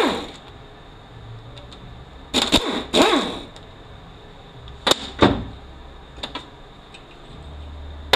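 Handheld power driver spinning out the two 5 mm bolts of the neutral switch on a 4F27E transaxle, in short bursts whose pitch sweeps up and then falls as the motor speeds up and winds down. The longest burst comes about two and a half seconds in and a shorter one about five seconds in.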